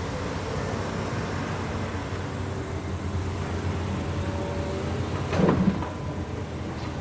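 Heavy machinery engine running steadily, with one loud knock a little over five seconds in.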